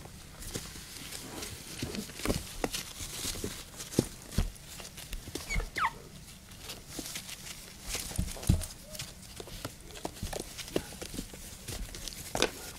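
Young puppies scrabbling about on a puppy pad: irregular taps, scratches and rustles, with one short squeak falling in pitch about six seconds in.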